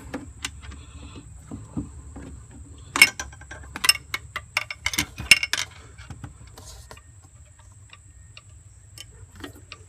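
Hand tools clicking and clinking on metal in irregular sharp ticks as the fan clutch's mounting nuts are tightened, with a screwdriver wedged in for leverage. The loudest clinks come in the middle, and the clicks thin out near the end.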